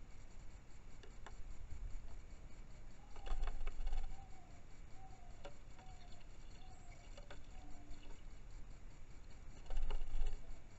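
Red-whiskered bulbul fighting its reflection in a car's side mirror: scattered sharp taps of beak and feet on the mirror, and two short bursts of wing flapping against it, about three seconds in and again near the end.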